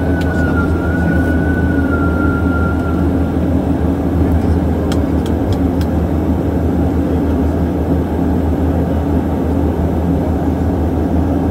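Turboprop airliner's engine and propeller running loud and steady, heard from inside the cabin during the roll along the runway after landing. A high whine over the drone dips slightly in pitch and fades out about three seconds in, and a few light clicks come around five seconds in.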